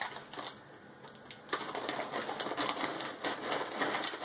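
Plastic bag of caramel corn crinkling and rustling as it is handled and dug through, with the popcorn shifting inside; a dense run of small crackles that starts about a second and a half in, after a short lull.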